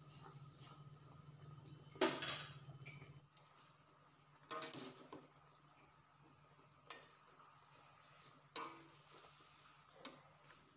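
Wire-mesh strainer knocking against the side of an aluminium cooking pot as vegetable leaves are pushed into the water. Five sharp clinks, roughly every two seconds, the first one the loudest, over a low steady hum that stops about three seconds in.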